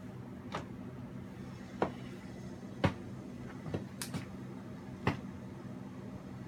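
A handful of sharp, short taps and knocks, about six at irregular intervals, the loudest a little before the middle, over a steady low hum.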